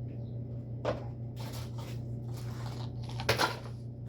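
Items being handled and moved about inside a refrigerator: two sharp knocks, about a second in and near the end, with scraping and rustling between them, over a steady low hum.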